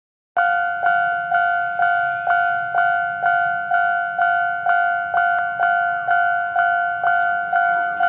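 Japanese railway level-crossing warning bell ringing in a steady two-tone strike pattern, about two strikes a second, starting just after the beginning: the crossing alarm signalling an approaching train.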